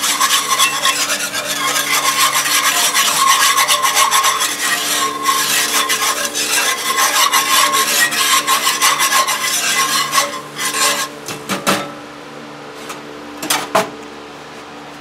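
Metal wire whisk scraping fast against the bottom of a cast iron skillet while stirring thickened au jus, a continuous rasping scrape. It stops about eleven seconds in, followed by a few clinks as the whisk is set down, leaving a steady hum.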